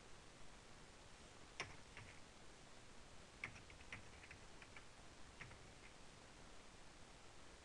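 Faint keystrokes on a computer keyboard: a couple of taps, then a quick run of them about three to five seconds in, and a few more after.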